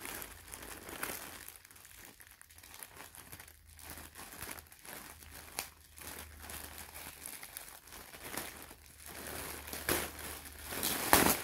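Packaging crinkling and crackling as hands work at opening a shipping package, in irregular handfuls, with the loudest crackles near the end.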